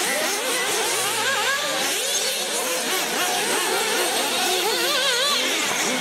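Several radio-controlled off-road racing cars running on a dirt track, their motors whining and constantly rising and falling in pitch as they speed up and slow down through the course.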